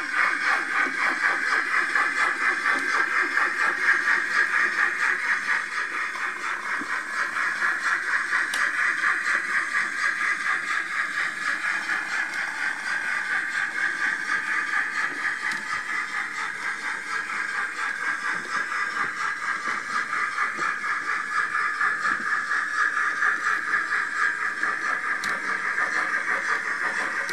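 Roco H0-scale BR 85 model steam locomotive's sound decoder playing fast, steady steam chuffing through its small speaker as it pulls coaches, with the model's wheels clattering over the track.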